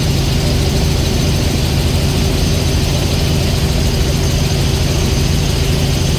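Helicopter in flight heard from inside the cabin: a loud, steady drone of rotor and engine with a thin high whine over it.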